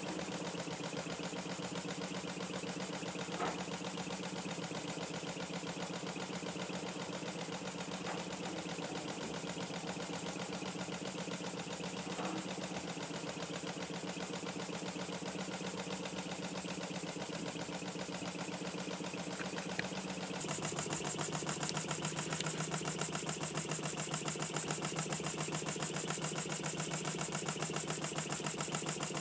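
Small single-acting model steam engine running steadily with a fast, even beat, driving a model oil pump jack through a round belt and flywheels. The sound gets a little louder and hissier about twenty seconds in.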